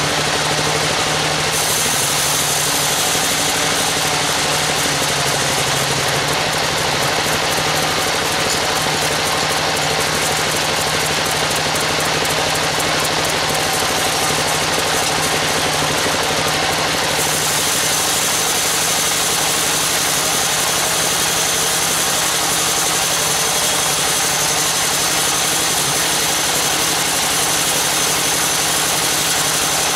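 Band sawmill running steadily, its blade sawing lengthwise through a teak slab as the slab is fed through. The high hiss of the cut changes near the start and again a little past halfway.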